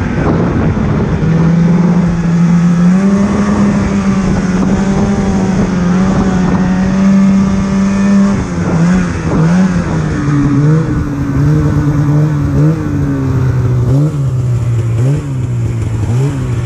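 An engine running at a fairly steady speed, its pitch stepping down about a second in and back up a couple of seconds later. From about eight seconds in, the throttle changes repeatedly, with quick drops and rises in pitch.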